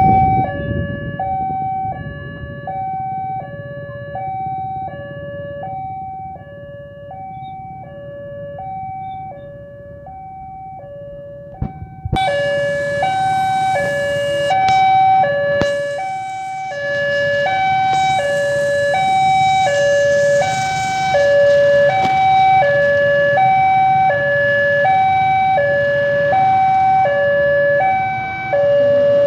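Railroad level-crossing warning alarm sounding a steady electronic two-tone pattern, high and low pitches alternating about once a second. About twelve seconds in, it gets louder and a rushing noise joins underneath.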